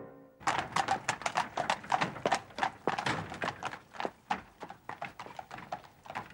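A horse's hooves clip-clopping on a street, several strikes a second, fading away toward the end.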